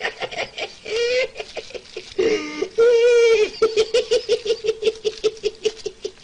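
A man laughing hard and uncontrollably, with high-pitched giggles that stretch into one long held note and then break into rapid pulses of laughter, about five a second.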